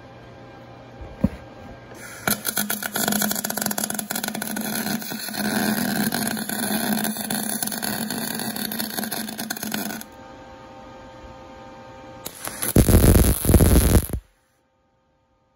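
Wire-feed welder's arc crackling and sizzling as steel pipe is welded to a truck wheel hub. It runs for about eight seconds, then stops. A second, shorter and louder burst of welding comes near the end before the sound cuts off.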